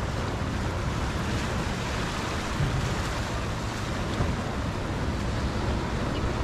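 Ocean surf washing steadily against the rocks of a jetty, with wind rumbling on the microphone.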